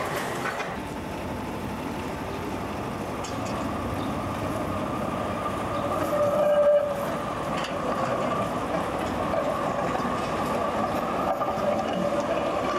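Street tram running on rail, a steady rumble with a steady high tone on top. A brief, louder tone rings out about six and a half seconds in.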